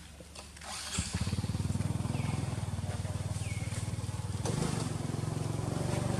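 A small engine running steadily with a fast low pulse, starting about a second in, with two short high chirps over it.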